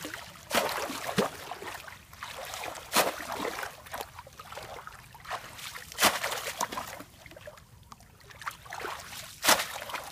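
Shallow muddy water splashing and sloshing around a person wading and lunging with his hands in it, with sharp splashes about half a second, three seconds, six seconds and nine and a half seconds in.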